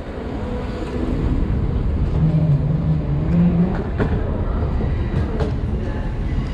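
Steady low rumble of an underground rail station, with a train running on the tracks below. A short wavering hum comes in about two seconds in.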